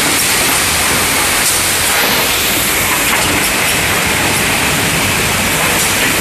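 YOUNGSUN ZX-30T drop-down wrap-around case packer running: a loud, steady mechanical din of the machine and its conveyors, with faint clacks now and then.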